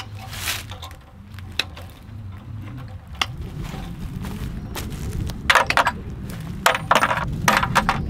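Woven-wire field fence rattling and clinking as it is handled. Scattered sharp metallic clicks, bunching into quick clusters in the second half.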